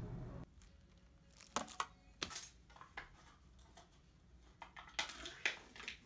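Plastic packaging crinkling and tearing in short, sharp bursts, two clusters a few seconds apart, as something is unwrapped by hand. Before it there is a brief moment of steadier room noise.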